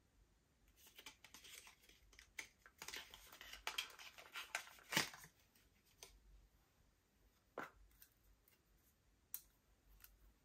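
A cardboard makeup box is handled and the compact slid out of it: rustling and scraping of card for a few seconds, ending in a sharp snap about five seconds in. A couple of single plastic clicks follow as the compact's lid is opened.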